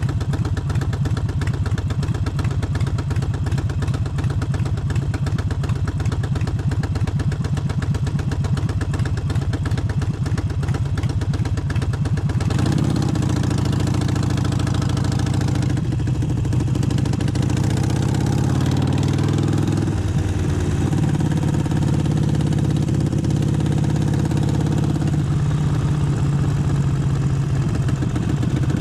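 Harley-Davidson Forty-Eight's air-cooled V-twin engine running. It holds a steady low beat for about twelve seconds, then its pitch rises and steps up and down several times as engine speed changes.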